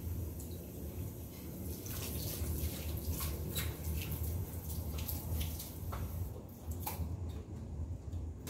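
Water drops falling and splashing on wet paving: a run of sharp drips between about two and seven seconds in, over a steady low rumble.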